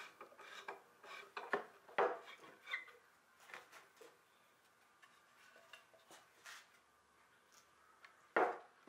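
Screwdriver working a screw out of a small wooden box fixed to a dresser top, with scattered light clicks and knocks of metal and wood, then the box being lifted off; a louder wooden knock near the end.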